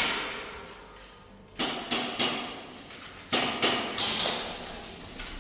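Scattered airsoft gun shots and BB strikes, sharp cracks that echo off the walls of a large indoor arena. About six come between a second and a half and four and a half seconds in, after a quieter opening.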